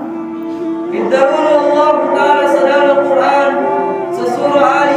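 A man's voice chanting in a melodic, sung style into a microphone, holding long notes that step up and down.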